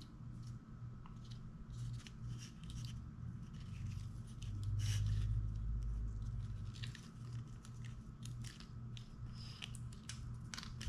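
Thin adhesive copper foil tape being peeled from its backing and pressed down by hand, a run of scattered crinkling and ticking rustles. A low steady hum runs underneath.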